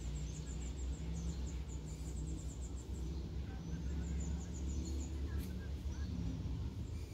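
Outdoor ambience: a rapid series of short, high-pitched chirps, several a second, that stops about five seconds in, over a steady low rumble.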